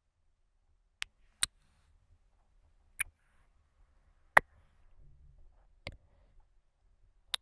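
ASMR mouth sounds: six sharp, short mouth clicks, spaced irregularly a second or so apart.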